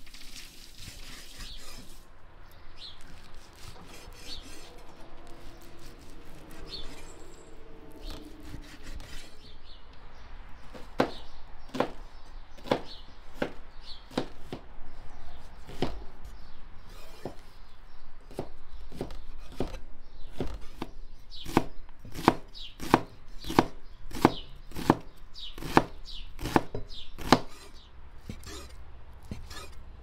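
Large cleaver chopping raw meat on a wooden cutting board: a steady run of knocks on the board, the sharpest and loudest at about two a second in the second half.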